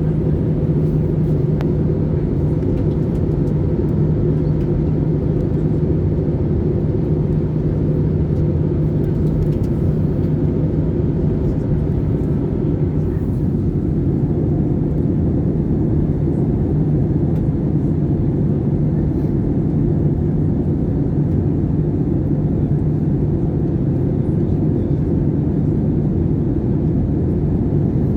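Airbus A320 on final approach: a steady drone of engines and airflow, with a constant low hum throughout.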